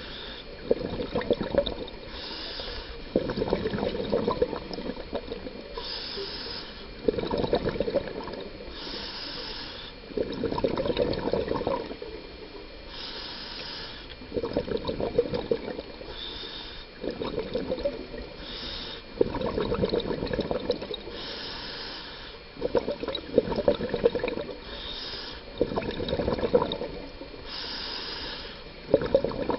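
Scuba diver breathing through a regulator underwater: a short hiss of inhalation, then a louder gurgling rush of exhaled bubbles, repeating about every three seconds.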